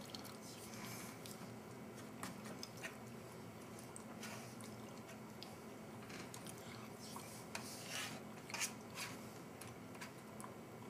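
Plastic spork scraping and tapping food from a stainless steel tray compartment, faint and irregular, with a few louder scrapes and clicks near the end, mixed with quiet chewing.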